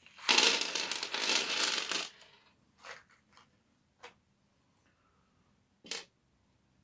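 Small Hilti powder-actuated nail-gun cartridges poured from their box onto a wooden table, clattering for about two seconds, then a few single clicks as they are moved about.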